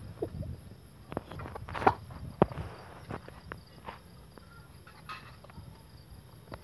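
Irregular footsteps and shuffling close to the microphone, with several sharp clicks and knocks among them, the loudest about two seconds in.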